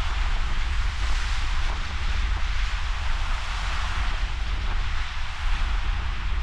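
Steady hiss of ocean surf, with wind buffeting the microphone as a deep, uneven rumble.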